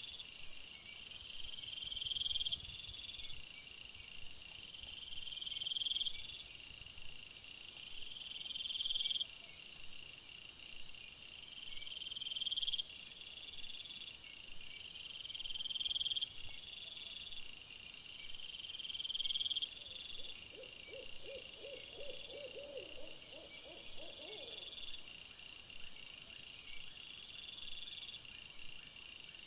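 A steady night chorus of crickets, with a rising buzzing phrase repeating about every second and a half to two seconds. Around two-thirds of the way through, a series of about ten short, low calls in quick succession from an unidentified animal.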